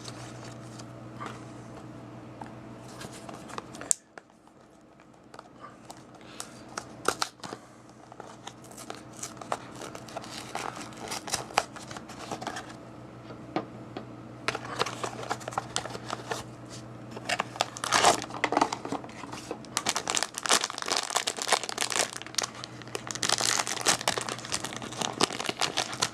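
Blind-box packaging being torn open and handled, a crinkling and tearing of wrapping in scattered bursts that grow busier and louder toward the end. A steady low hum fills the first few seconds and cuts off suddenly about four seconds in.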